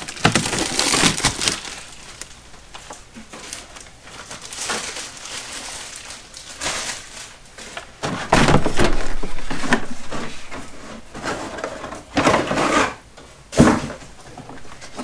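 Plastic wrapping being torn and crinkled off a boxed tool case in irregular bursts of crackling, with a longer loud stretch about eight seconds in.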